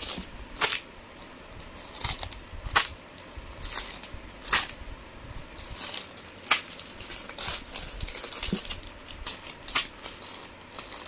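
Plastic packets of costume jewellery necklace sets rustling and crinkling as they are shuffled in a cardboard box, with a sharp click or crinkle every second or two.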